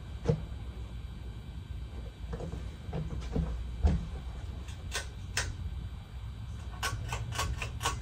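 A 52-inch Hunter Original ceiling fan with a PSC motor runs with five blades, giving a steady low hum. Scattered sharp clicks and knocks sound over the hum, with a quick run of about six clicks near the end.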